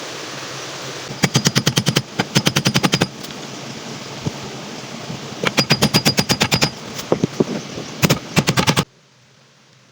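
Power driver rattling in about five short bursts of rapid strikes, roughly ten a second. A steady hiss underneath cuts off suddenly near the end.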